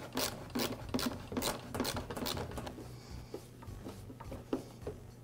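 Screwdriver turning the screw of a hose clamp on a backpack blower's intake pipe: a run of short scraping clicks, about four a second, for the first couple of seconds. They stop, and a few soft knocks follow as the pipe is handled.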